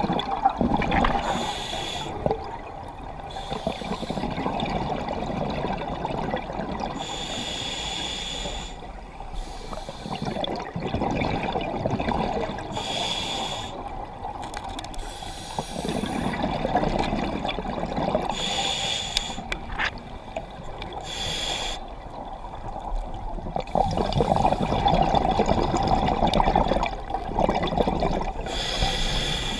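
Scuba diver breathing through a regulator underwater: a short hiss on each inhalation every few seconds, then a longer bubbling rumble as each exhaled breath escapes.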